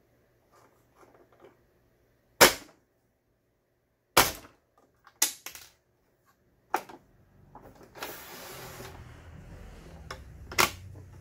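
Hard plastic end cover of a Toyota household sewing machine being pressed and knocked onto its housing: a few sharp, separate snaps and knocks. In the second half, a short scraping rustle of handling.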